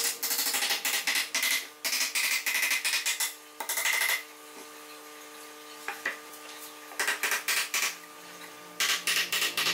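Small hammer tapping quickly on the wooden planking of a model boat hull, in runs of light rapid knocks. The tapping pauses for a few seconds in the middle and starts again near the end.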